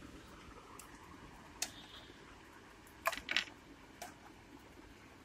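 A few light, sharp clicks over faint room hiss: one about a second and a half in, a quick pair about three seconds in, and a weaker one near four seconds.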